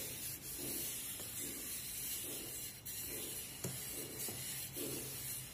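Base of a small metal bowl rubbed in repeated strokes over warm sukhadi mixture (wheat flour, ghee and jaggery) in a steel plate, pressing it flat and even. Soft rubbing, a stroke about every three-quarters of a second, over a faint steady hum, with one small click about two-thirds of the way in.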